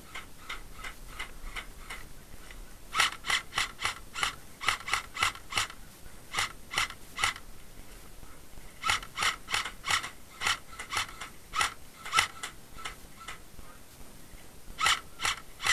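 Airsoft rifle firing quick single shots, about three a second, each a sharp mechanical crack. The shots come in two long strings with a pause of about a second and a half between them, and a few fainter shots come near the start.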